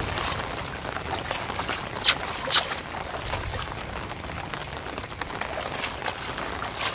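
Steady rain falling on standing water and grass: an even hiss with many small drop ticks. Two louder sharp taps come about half a second apart a couple of seconds in.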